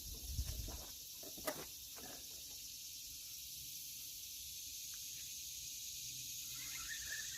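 Outdoor ambience: a few soft knocks and rustles in the first two seconds, then a steady high hiss, with faint squeaky chirps near the end.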